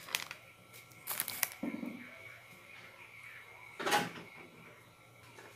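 Brief kitchen handling noises: a few short rustles, a soft low thump, and a louder rustle or knock about four seconds in, as a small plastic packet of colorau is handled over a plastic bowl of chicken.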